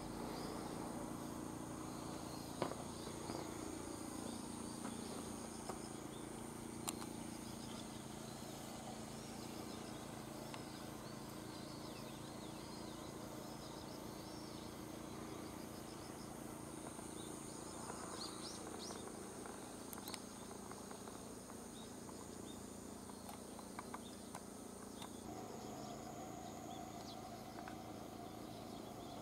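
Faint countryside ambience: insects trilling steadily at a high pitch, with scattered bird chirps and a few light clicks. A steady hum comes in near the end.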